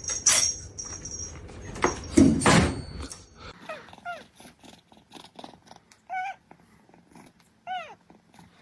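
A cat meowing: three short calls that fall in pitch, about two seconds apart, in the second half. Before them come a few loud knocks and rustling.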